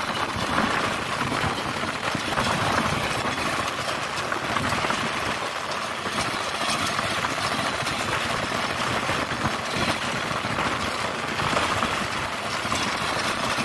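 Hand tractor's diesel engine running steadily under load as the tractor churns through flooded paddy mud.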